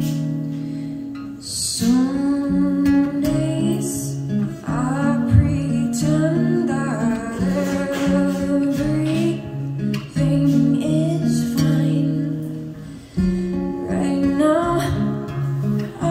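Acoustic guitar strummed in steady chords, with a woman's singing voice coming in about two seconds in: a live acoustic song.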